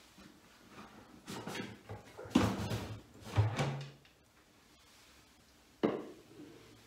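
Lid of a white plastic fermenting drum being handled and worked loose: a run of plastic knocks and scrapes, loudest about two and a half and three and a half seconds in, then a single sharp knock near the end.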